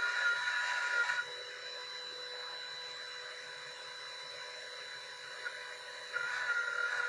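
CNC router spindle running with a steady high whine while its bit cuts the board. The louder cutting noise drops away about a second in and comes back about six seconds in.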